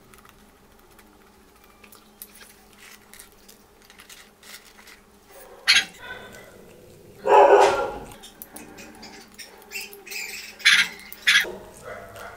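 Biting into and chewing a slice of pizza close to the microphone, with soft clicking mouth sounds. A few loud short sounds break in: one at about six seconds, a louder one of under a second soon after, and two more near the end.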